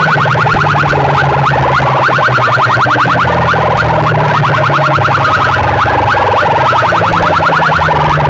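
Electronic competition tones played very loud through a DJ sound-box rig: a fast, unbroken run of short chirping beeps, many a second, over a steady low drone.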